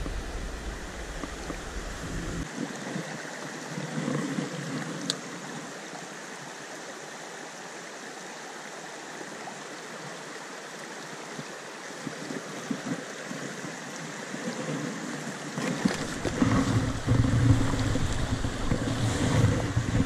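Shallow mountain stream running over rocks, a steady rushing of water. Wind buffets the microphone with a low rumble for the first couple of seconds, and again in the last few seconds along with handling knocks.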